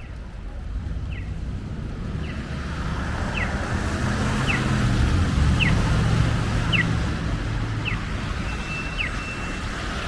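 A vehicle passes on a city street, its engine and tyre rumble swelling and then easing. Over it, a short high falling chirp repeats about once a second, with one brief steady high tone near the end.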